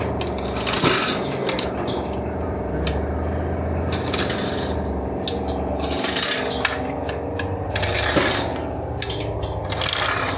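Hand tools scraping and rubbing on metal with sharp clinks every couple of seconds, over a steady droning hum, as a burnt-out transformer is pulled apart for coil repair.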